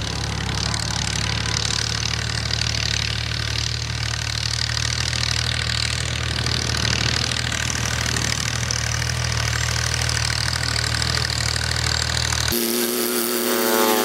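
Tractor's diesel engine running steadily, a low drone with a high hiss over it. Near the end it cuts abruptly to a different, higher-pitched humming tone.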